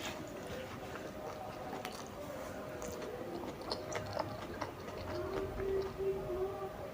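Close-miked chewing of tandoori momos, with wet mouth clicks and smacks scattered throughout, over a faint steady hum.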